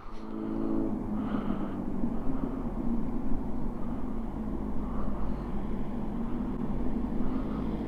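Engine running steadily, a low hum over outdoor traffic noise, with a brief rise in pitched engine tones in the first second.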